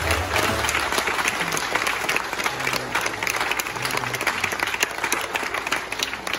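Congregation applauding, many hands clapping together at once.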